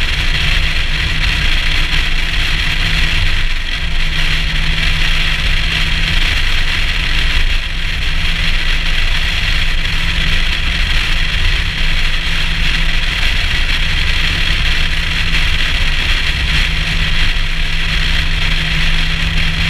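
Nissan Skyline R34 cruising at a steady highway speed, heard from a camera mounted on the outside of the car: a constant engine hum under steady road and wind noise, with no revving or gear changes.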